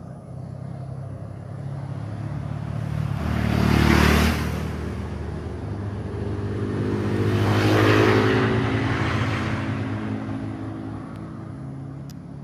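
Two road vehicles passing one after the other, each rising and fading with tyre noise and engine hum. The second passes a few seconds after the first, with a lower hum that lingers longer.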